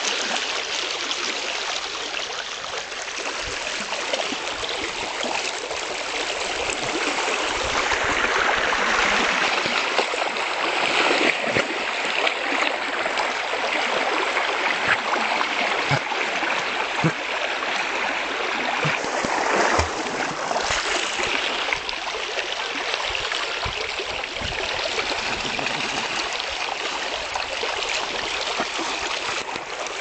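Running river water rushing steadily, with a Labrador paddling and splashing in it close by.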